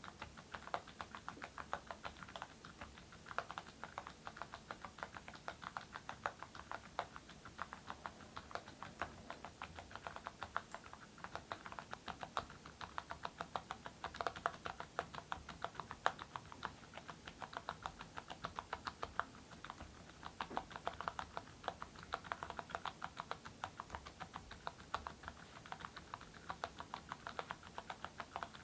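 Continuous typing on a mechanical keyboard with full-metal Awekeys keycaps over silent switches: a steady, dense stream of key clicks.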